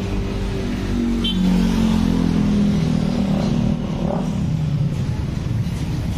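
A motor vehicle engine running nearby. Its pitch rises over the first couple of seconds and falls away about four seconds in, over a steady low rumble.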